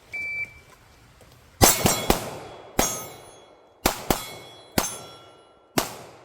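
Shot timer gives one short beep, then about a second and a half later a pistol fires a fast string at steel targets that ring on the hits: three shots in quick succession, then single shots and a pair spaced out over the next four seconds.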